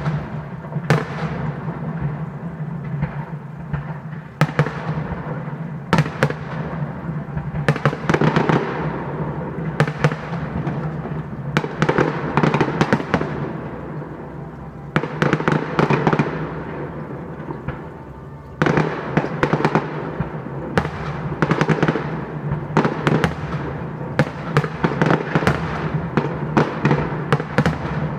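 Fireworks display: a continuous barrage of sharp aerial shell bangs with crackling between them, coming in dense rapid volleys, with a brief lull about two thirds of the way through.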